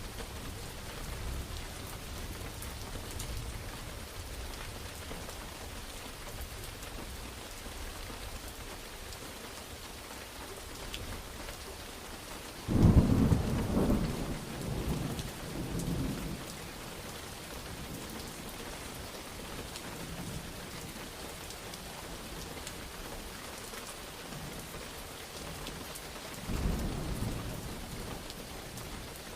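Steady rain with thunder: a sharp thunderclap rolling on in rumbles for a few seconds about halfway through, and a softer rumble of thunder near the end.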